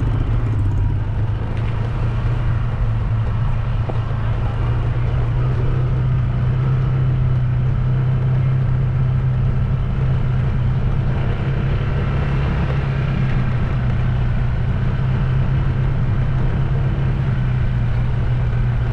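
Engine of a vehicle being ridden along a road, running at a steady speed. A constant low drone carries over road and wind noise.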